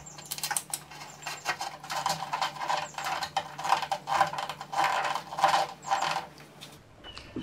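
Irregular light clicks and rustles of hands handling a plastic car spoiler and feeding its wiring through a rubber grommet and a drilled hole in the trunk lid. The clicks come close together and stop near the end.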